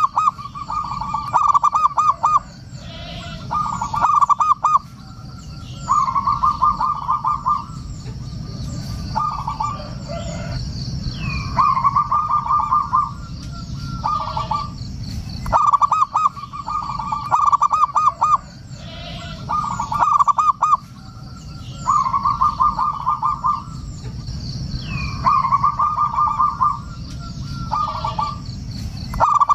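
Zebra dove (perkutut) calling over and over: a run of rapid, stuttering coo notes about every two seconds, with faint high chirps and a steady low hum underneath.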